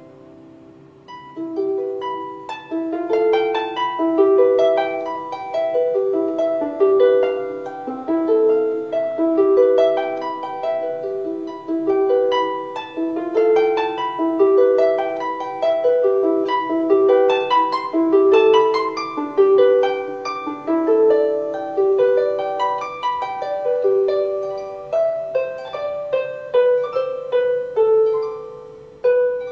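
Solo harp playing a barcarolle: a continuous stream of plucked, ringing notes in a repeating accompaniment pattern with a melody above it, after a brief lull in the first second.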